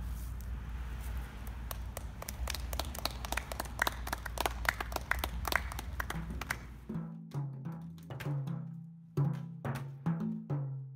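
A small group clapping by hand, many quick irregular claps over a low steady rumble. About seven seconds in the sound changes abruptly to a rhythm of low, pitched drum-like notes.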